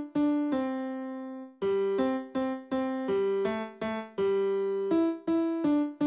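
Background music: a simple melody of single electric-piano-like notes played one at a time, each struck and fading, with a brief gap about a second and a half in.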